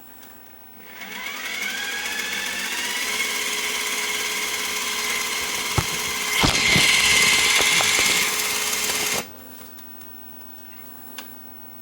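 Sony EVS-7000 Hi8 video deck rewinding a tape: the reel motor whines up to speed over the first couple of seconds and then runs steadily. Partway through it gets louder and brighter after a couple of clicks, then stops abruptly about nine seconds in.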